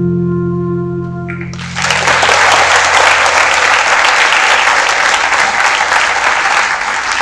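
The held final chord of a piece of instrumental music, then clapping from an audience that breaks out about a second and a half in and carries on steadily.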